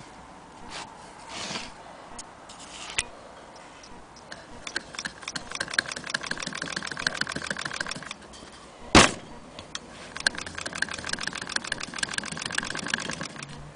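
Willcox & Gibbs hand-cranked chain-stitch sewing machine stitching fabric: a rapid, even clicking from the mechanism in two runs of a few seconds each, with one sharp clack between them.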